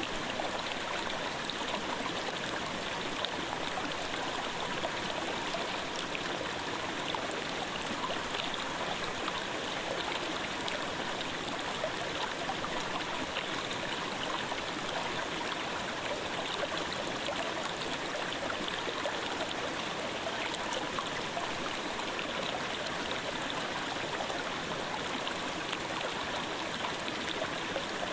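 Clear mountain stream babbling steadily.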